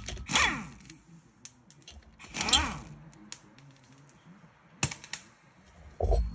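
Air impact wrench fired in two short bursts, driving bolts into the threaded holes of a rusted brake rotor's hat to jack the seized rotor off the hub. A sharp metallic click follows, then a low thump near the end.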